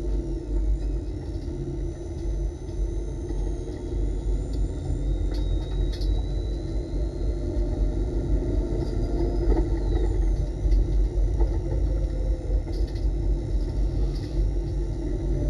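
Subaru Legacy race car's boxer engine, heard from inside the cabin, running at low revs under light throttle as the car pulls away and rolls slowly, with a steady low rumble.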